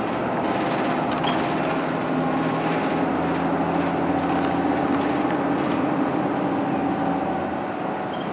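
Cabin running sound of a 2003 Mitsubishi Fuso Aero Midi MK (KK-MK23HM) non-step route bus under way: the diesel engine drones steadily over road and tyre noise.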